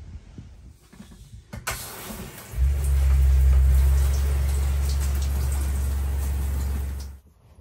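Camper shower running: water spraying from the shower head onto the cubicle wall, starting just under two seconds in as the mixer tap is turned on. A steady low hum joins about a second later, and both cut off suddenly near the end.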